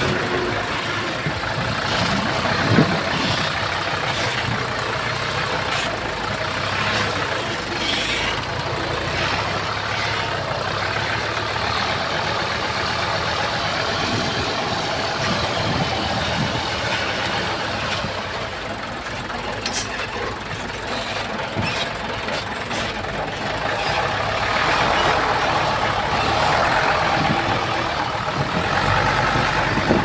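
Komatsu D20P bulldozer's diesel engine running steadily, with a few sharp clanks. It grows louder over the last few seconds.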